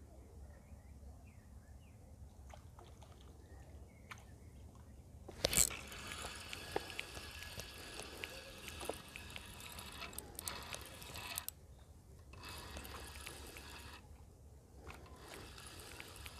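Spinning reel on a feeder rod being cranked, winding in line with a small fish on. A sharp knock about five seconds in is followed by a steady gear rattle that stops briefly a few times.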